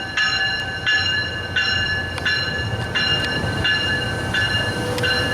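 Railroad bell ringing steadily, about one stroke every three-quarters of a second, each stroke sounding a clear stack of tones. Under it runs the low rumble of a Tri-Rail diesel locomotive standing at the platform.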